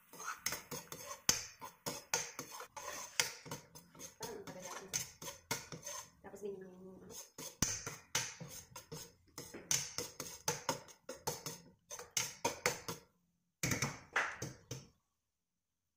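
A metal ladle scraping and clinking against a stainless steel wok as garlic and ginger are stirred while they fry. The clicks are irregular and fast, and stop shortly before the end.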